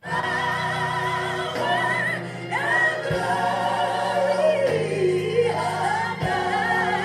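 Recorded gospel choir song starting suddenly at full volume: voices singing with wide vibrato over held low accompaniment notes.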